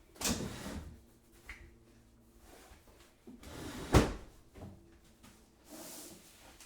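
Kitchen cupboard being opened and shut: a short clatter just after the start, then a sharp knock about four seconds in, the loudest sound, and a softer one near the end.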